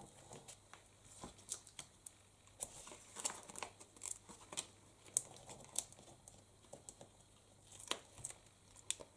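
Faint paper-craft handling sounds: card stock and paper crinkling, with scattered sharp little clicks and ticks as foam adhesive dots are peeled from their backing sheet and a paper kite is pressed onto a card.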